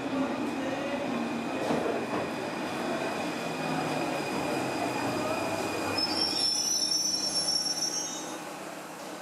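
Paris Métro MF 01 train rolling into the platform on rails, with a rumble and a steady whine. About six seconds in, its steel wheels squeal shrilly for a couple of seconds as it slows, then the sound fades.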